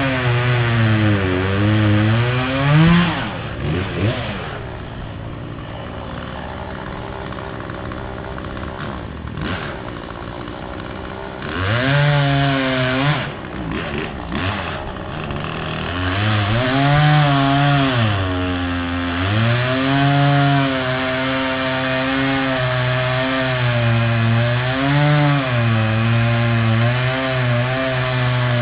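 Two-stroke chainsaw cutting wood, its engine pitch sagging and recovering again and again as the chain bites into the cut. About four seconds in it drops to a quieter idle for several seconds, then revs up again at about twelve seconds and goes back to cutting.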